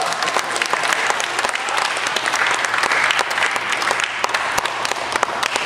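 Spectators applauding: many hands clapping in a steady, dense patter.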